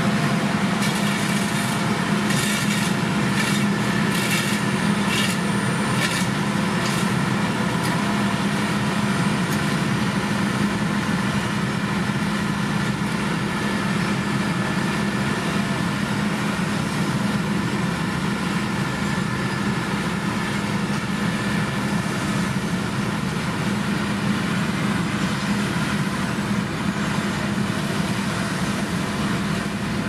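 Heavy diesel construction machinery running steadily under load, a constant engine drone, with a series of short clicks or clanks over the first several seconds.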